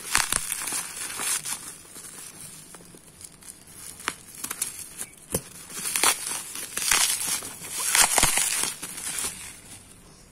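Plastic bubble wrap being handled and pulled open, crinkling and rustling in bursts with sharp crackles. It is loudest around the middle and just before the end, and eases off in the last second as the box comes free.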